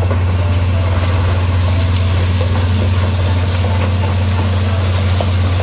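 Large mining haul truck's diesel engine running steadily with a deep hum as its raised bed tips a load of rock over an edge, the rock sliding and spilling off under the engine noise.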